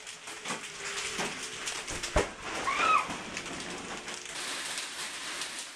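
Heavy rain and golf-ball-size hail drumming, with many scattered sharp hits. One loud knock comes about two seconds in, followed shortly by a brief squeak.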